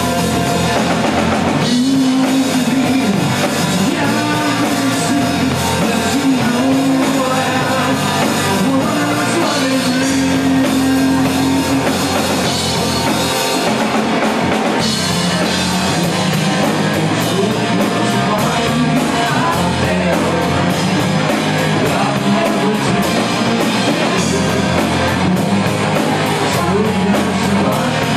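Live rock band playing: a male lead singer's vocals over electric guitar, bass and a drum kit.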